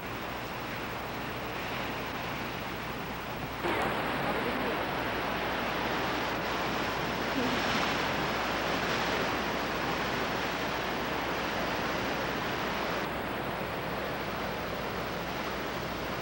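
Steady rush of surging water and surf, with wind buffeting the microphone. It steps up suddenly a few seconds in and stays louder.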